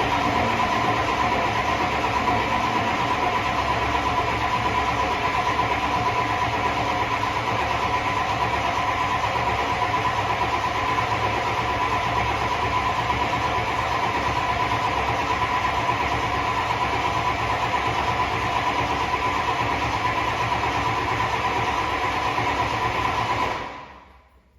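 Turbocharged IDI diesel engine idling steadily, just after a fresh turbo install, with a steady high whine over the diesel clatter. The sound stops near the end.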